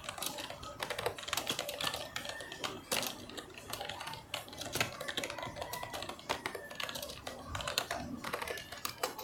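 Rapid, irregular clicking and tapping throughout, with faint voices in the background.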